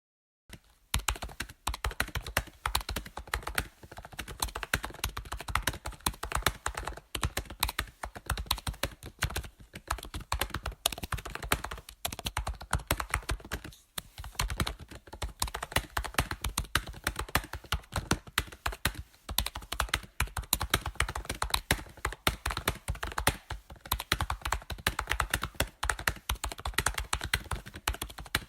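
Typing on a computer keyboard: a fast, continuous run of key clicks that starts about a second in, with a brief pause about halfway through.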